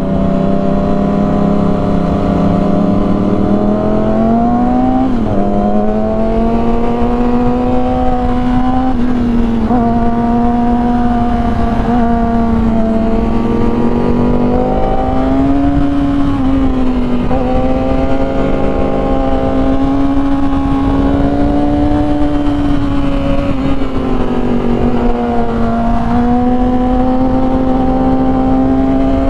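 Yamaha R6 sport bike's inline-four engine running at steady cruising revs, its pitch rising and falling gently with the throttle over a constant rush of wind.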